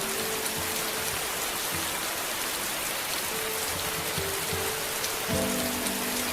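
Steady rain hiss with soft, sustained low music notes underneath; a new set of held notes comes in about five seconds in.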